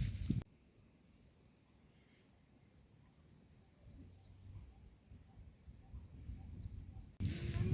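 Crickets or similar insects chirping in a steady, regular rhythm of high-pitched pulses over a continuous high buzz, with a few faint bird whistles. Louder outdoor sound briefly fills the very start and comes back near the end.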